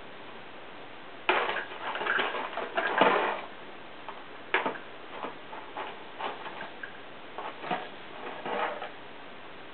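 A cat pawing and scrabbling at a mouse toy inside a cardboard tissue box: irregular scratches, rustles and sharp taps, busiest a second or so in, then scattered taps.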